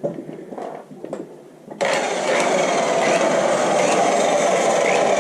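A few light handling clicks and knocks, then about two seconds in a high-speed rotary buffer switches on abruptly and runs steadily with a constant whine.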